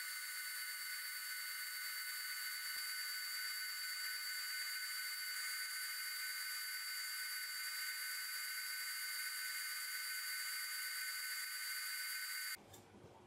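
Benchtop spindle sander with a 240-grit sleeve running with a steady high-pitched whine while the sharp edges of an acrylic sheet are sanded. It cuts off suddenly near the end.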